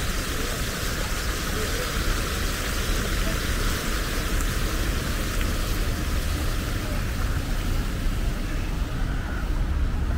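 Steady outdoor city background: an even wash of noise over a low traffic rumble, with no single event standing out.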